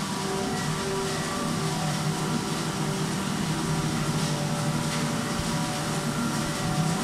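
Corrugated cardboard production-line machinery running: a steady low hum with a few held tones over an even wash of machine noise.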